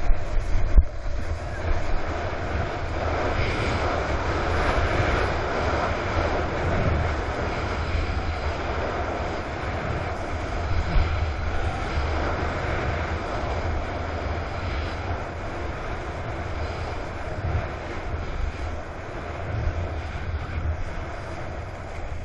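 Water rushing and splashing past a moving surfboard, with wind buffeting the board-mounted camera's microphone into a steady low rumble.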